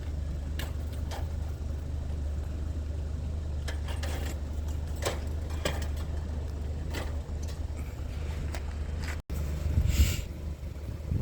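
Motor vehicle running with a steady low rumble, with scattered clicks and rattles and a short louder noise near the end.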